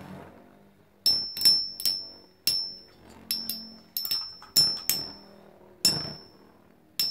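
Two metal Beyblade spinning tops, Leone and Wolf, clashing in a plastic stadium: about a dozen sharp metallic clinks, each with a short high ring, at irregular gaps of a fraction of a second to about a second.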